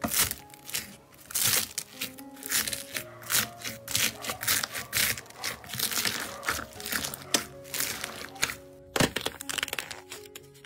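Hands squeezing and kneading foam-bead slime (floam), giving a dense run of crunchy crackling pops, over background music with a melody. About nine seconds in, a sharper crack as the dried crust on another slime is pressed open.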